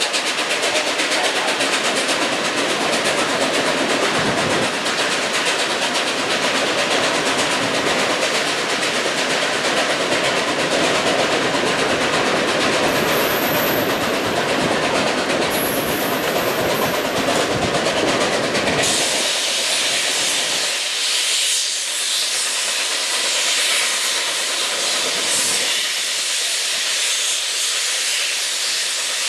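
Nickel Plate Road 765, a 2-8-4 Berkshire steam locomotive, and its passenger train heard from an open coach window: a steady rush of wheels on rail mixed with steam exhaust and hiss. About two-thirds of the way through, the deep rumble drops away and mostly a higher hiss is left.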